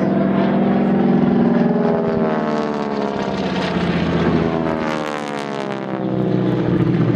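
Propeller-driven aerobatic plane's piston engine droning steadily overhead, its pitch shifting as it passes, with the level dipping slightly near the end.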